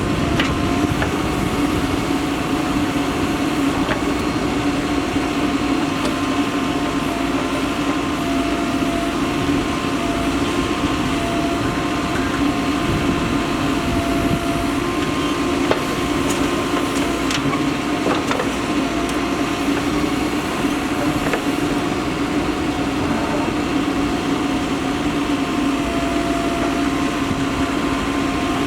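Diesel engine of a Mahindra EarthMaster SX backhoe loader running steadily under work, with a few faint knocks.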